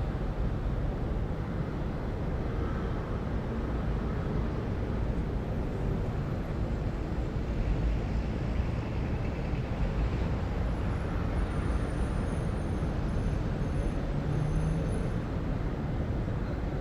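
City ambience: a steady low rumble of distant traffic, with no single event standing out.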